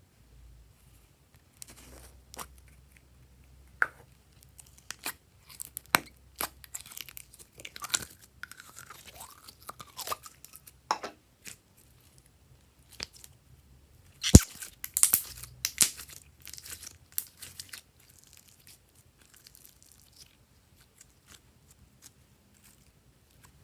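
Glossy slime being squished and stretched by hand: scattered sticky clicks and crackling pops. The loudest is a sharp pop about halfway through, followed by a burst of crackling.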